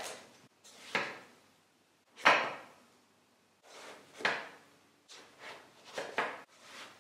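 A kitchen knife cutting through an eggplant and knocking on a wooden cutting board, one stroke at a time, about one cut a second and quicker near the end, the loudest about two seconds in.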